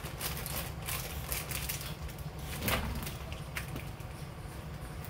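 Scattered light clicks and knocks of kitchen items being handled and set down, over a steady low hum.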